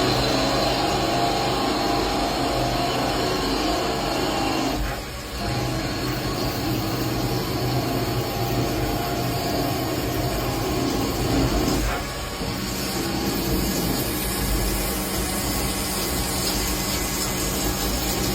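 CNC machine tool running: a steady mechanical whir with a constant hum, briefly dipping twice, about five and twelve seconds in.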